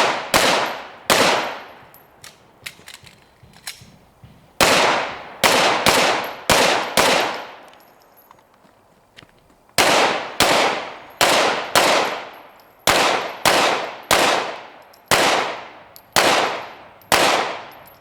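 Pistol shots fired in strings during an action pistol stage: two shots, a pause, a quick string of five, another pause, then a long string of about eleven, each shot sharp with a short echoing tail.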